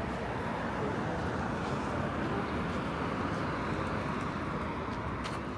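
City street ambience: a steady wash of traffic noise from passing vehicles, with a faint high-pitched whine through the middle.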